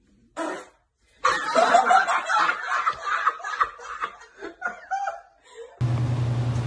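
A man laughing hard and long, in a string of loud peals that fades out a little before the end. Near the end a steady low hum with a hiss starts abruptly.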